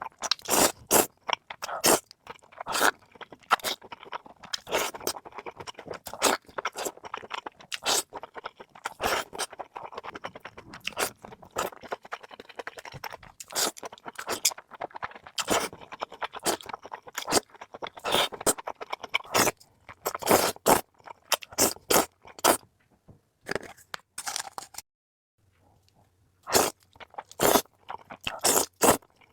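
Close-miked chewing of food, with many crisp crunches and wet mouth sounds one after another. It pauses briefly about three quarters of the way through.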